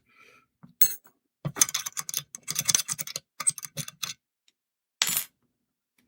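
Small Ace four-lever padlock, already picked open, handled together with its metal picking tools: irregular runs of small metal clicks and clinks, the densest between about one and a half and four seconds, and a short rattle about five seconds in.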